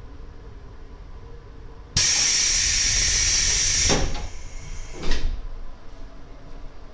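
Commuter train's pneumatic doors closing: a sudden hiss of compressed air for about two seconds, then a thud as the doors shut.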